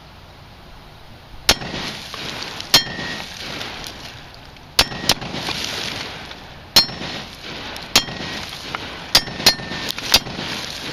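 Steel plate target struck by AR-15 rounds (.223/5.56): about nine sharp clangs at irregular intervals, some in quick pairs, each with a brief metallic ring.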